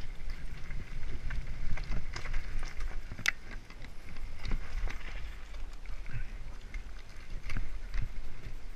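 Mountain bike riding fast down a rocky dirt singletrack: tyres crunching over dirt and stones and the bike rattling, with frequent sharp knocks and clicks, the sharpest about three seconds in, over a steady low rumble.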